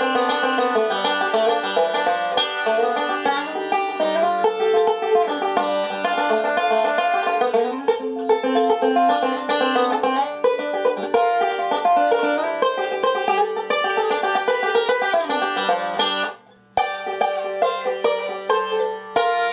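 Five-string resonator banjo picked with finger picks in three-finger bluegrass style, playing a breakdown at a slowed-down tempo in open G tuning. The picking stops briefly about sixteen seconds in, then resumes.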